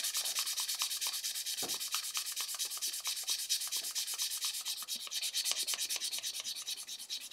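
400-grit sandpaper rubbing against an oak pen blank on a wood lathe: a steady hissing scrape with a fast, even pulsing.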